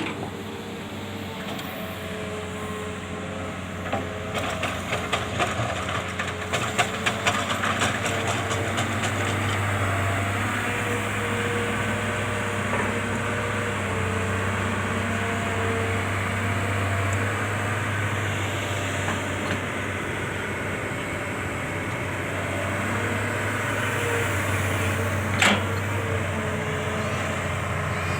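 Excavator's diesel engine running steadily with a low drone and a higher steady whine. A few seconds in comes a run of rapid knocks and rattles lasting several seconds, and there is one sharp knock near the end.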